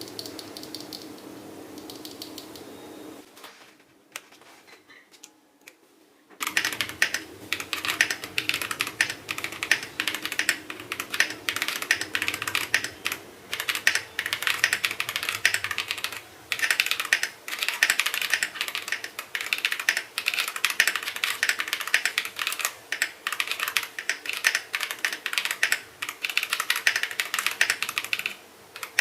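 Mechanical keyboard with Yang 5-pin linear switches (58 g bottom-out) and JC Desko keycaps being typed on at a steady, fast pace: a dense, even clatter of keystrokes that starts about six seconds in, after a stretch of low steady hum.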